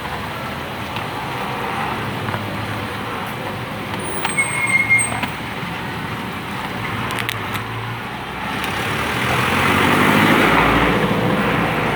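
Street traffic noise, with a vehicle passing close and loud about nine to eleven seconds in. A few brief high squeaks sound about four to five seconds in.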